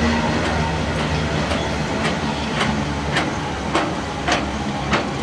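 Freight train of empty flat wagons rolling past with a low rumble. From about a second and a half in, the wheels click in a steady rhythm, about two clicks a second.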